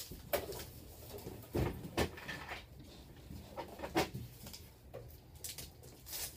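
A handful of separate sharp clicks and knocks, a second or two apart, as blood-draw supplies are picked up and set down on a counter.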